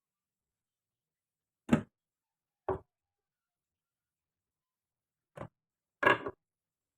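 Marbles knocking on a wooden marble run. A sharp clack comes about a second and a half in and a softer one a second later. Near the end there is a faint tick, then a short rattling double knock.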